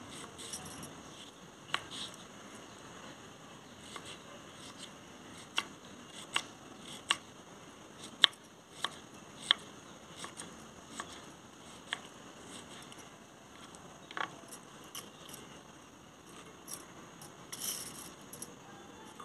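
Kitchen knife dicing cucumber on a wooden chopping board: sharp taps of the blade striking the board, irregularly spaced, a dozen or so in all.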